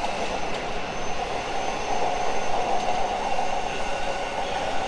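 Unrenovated Odakyu 1000 series electric train running, heard from inside the car: steady wheel and track noise with a steady whine.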